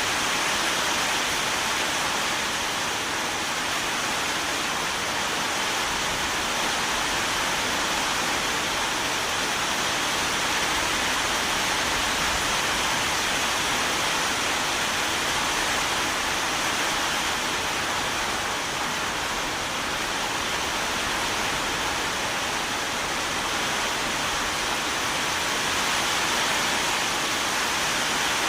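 Steady rain falling, an even hiss without separate drops standing out.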